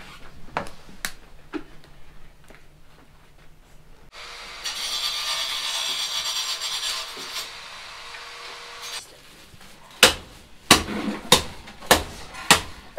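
Kitchen work: light rustling and clinks from leaves and a large pot. In the middle comes a steady hiss lasting about five seconds that starts and stops abruptly. Near the end there is a quick run of sharp knocks.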